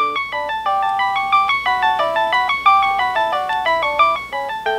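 VTech DECT 6.0 cordless phone handset playing one of its built-in ringtones through its speaker: a quick electronic melody of clean, chiming notes, several a second.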